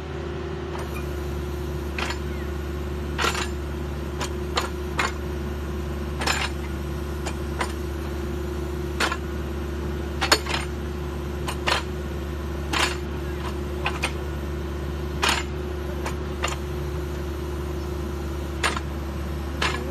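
Excavator engine and hydraulics running with a steady hum, with irregular sharp metallic clicks and clanks, about one every second or two, as the tilt-rotator quick coupler swings and works its attachments.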